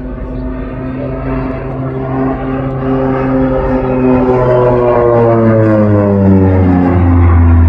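OV-10 Bronco's twin Garrett T76 turboprop engines and propellers droning in a low flypast, growing steadily louder. From about four seconds in, the propeller tone slides down in pitch as the aircraft passes.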